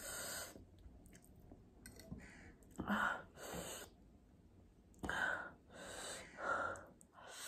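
Close-miked mouth sounds of eating spicy ramen noodles: slurping and chewing in several short noisy bursts, mixed with sharp breaths.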